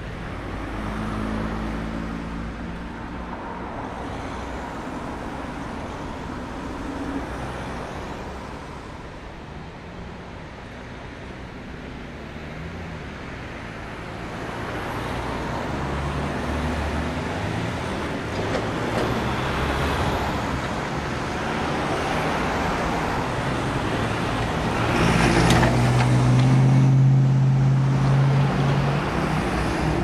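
City traffic at a road junction: cars and other motor vehicles running and passing in a continuous wash of engine and tyre noise. There is a lull about a third of the way through. Near the end the traffic builds to its loudest as a vehicle with a strong low engine drone passes close.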